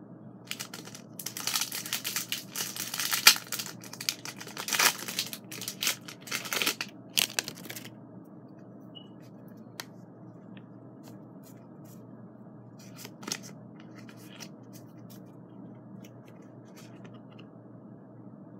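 Foil Pokémon booster pack wrapper being torn open and crinkled: a run of loud, crackly ripping sounds lasting about seven seconds, then only a few faint ticks.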